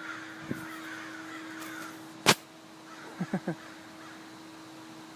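Crows cawing: a run of harsh calls in the first two seconds and a few short calls about three seconds in, over a steady low hum. A single sharp click about two seconds in is the loudest sound.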